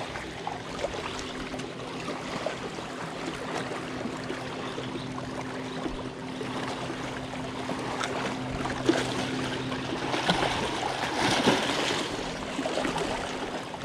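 Small waves lapping and splashing against the rocks of a riprap shoreline, a steady wash of water that swells louder about ten seconds in.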